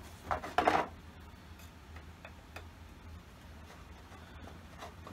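A nail being pulled out of a wooden hive frame: a short scrape and clatter of tool and wood about half a second in, then a few light ticks.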